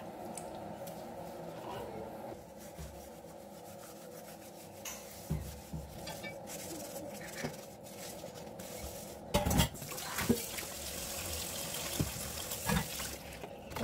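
Dishes being washed at a kitchen sink: water running and the clink and knock of pots and plates, with a few sharp knocks in the last few seconds.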